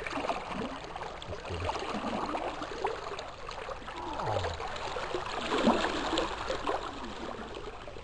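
River current flowing and gurgling, with irregular small splashes.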